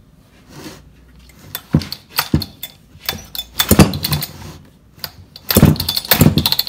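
Jonsered 625 two-stroke chainsaw being pull-started, its recoil starter yanked a few times with the longer, harder pulls in the second half, the engine turning over with the muffler off but not catching. It has been primed with gas, and the owner suspects it still has no spark.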